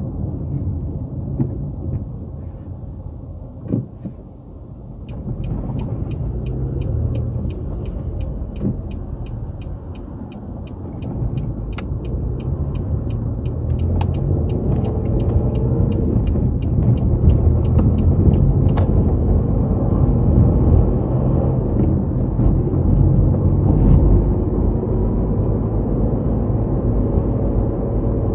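Car cabin rumble from the engine and tyres, with the turn-signal indicator ticking about twice a second for around fifteen seconds. The rumble grows louder in the second half as the car gathers speed.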